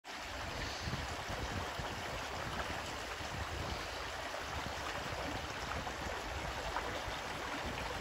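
Shallow creek running over rocks, a steady rush of water.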